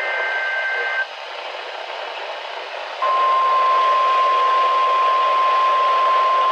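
NOAA Weather Radio broadcast heard through a receiver with static hiss. The last burst of the SAME digital header, a harsh two-tone data screech, cuts off about a second in. After two seconds of static, the steady single-pitch Weather Radio warning alarm tone starts, signalling the start of the Required Weekly Test.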